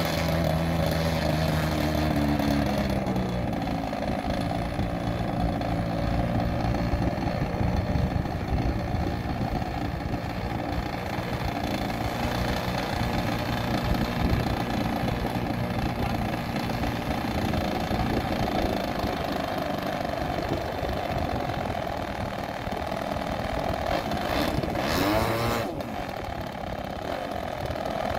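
30cc two-stroke engine of a 78-inch Pilot RC Edge 540 model aerobatic plane running steadily on the ground just after starting, warming up with the plane held in place. Near the end it revs briefly, then settles back to a lower idle.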